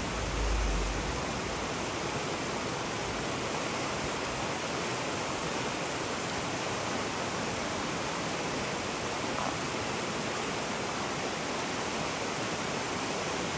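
Steady rush of water from a mountain waterfall and stream, an even hiss with no breaks. A brief low rumble sits under it about a second in.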